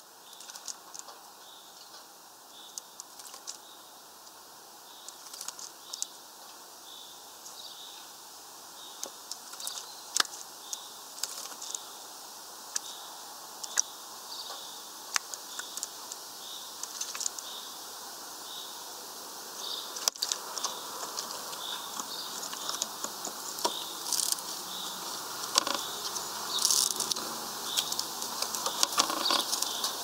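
Small bird bathing in a shallow plastic tray of water: quick irregular splashes and patter of droplets, growing busier and louder in the last third. A faint high note repeats about once a second underneath.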